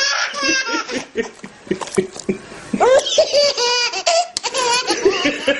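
A baby laughing hard in rapid, high-pitched bursts, with a short lull partway through before the laughter starts up again.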